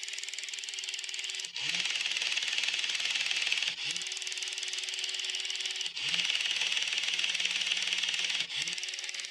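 The small electric motor and plastic gear train of a 1980s Radio Shack RC tank are running and reverse direction four times, roughly every two seconds. Each reversal is a brief stop and then a rising spin-up. The drive runs louder in one direction than the other. This shows the rebuilt reversing circuit working from the remote's button.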